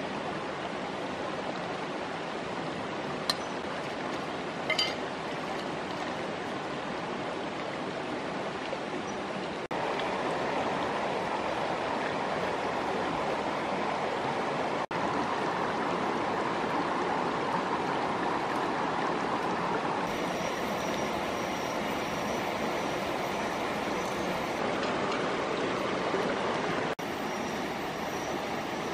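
Shallow stream running over stones: a steady rush of water that steps up and down in level at a few cuts, with a couple of faint clicks a few seconds in.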